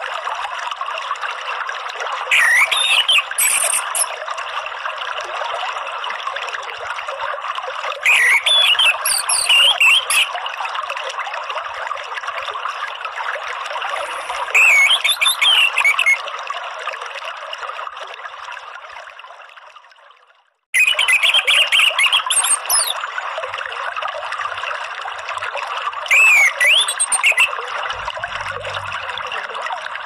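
Steady running water trickling, with short bursts of orange-headed thrush song every few seconds. About two-thirds of the way through, the sound fades out, then cuts back in suddenly.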